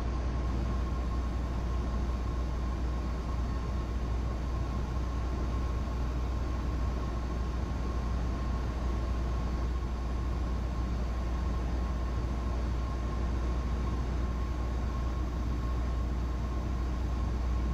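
Cessna 172's piston engine and propeller droning steadily in the cabin on an instrument approach, with a faint steady whine on top.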